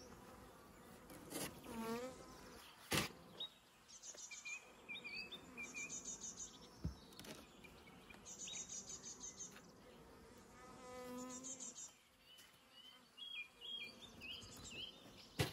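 Honeybees from a small swarm buzzing around an open cardboard swarm box and hive. Twice a bee flies close past, its hum rising then falling in pitch. A sharp knock comes about three seconds in and another near the end.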